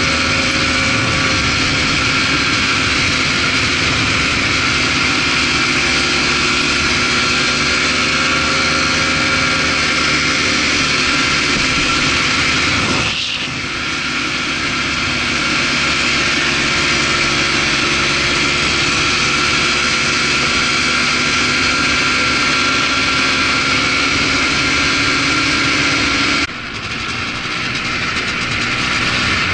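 ATV engine running steadily under way on a dirt trail. The sound drops suddenly and briefly twice, about thirteen seconds in and near the end.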